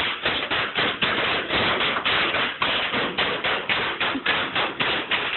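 Sheets of bubble wrap on a floor popping under running, stomping feet: a rapid, continuous run of sharp pops and crackles, several a second.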